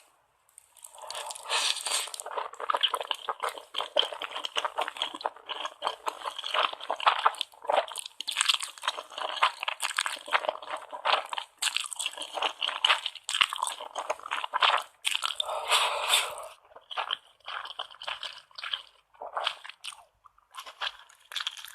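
Close-up eating sounds of a ramen mukbang: wet chewing and crunchy bites in dense runs, with a quieter pause about three-quarters of the way through.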